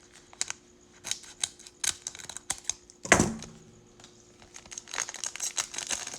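Trading cards being handled and flipped through: a quick run of irregular sharp card clicks and slides with some wrapper crinkling, and one louder thump about three seconds in.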